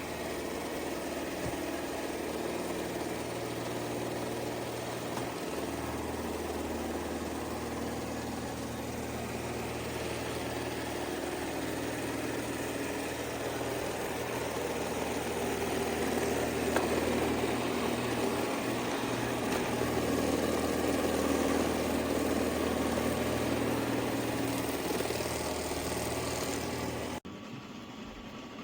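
Shark PowerDetect robot vacuum's suction motor running with a steady hum and airy rush, stopping abruptly near the end.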